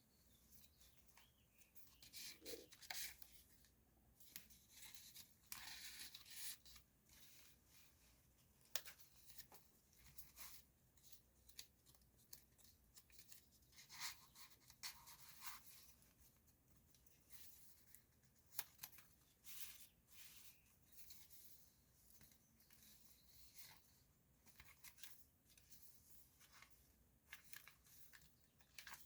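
Faint rustling and crinkling of paper pages in a handmade junk journal as they are handled and turned, in short irregular bursts.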